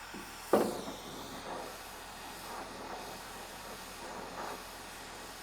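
A single sharp knock about half a second in, then a steady hiss of background noise.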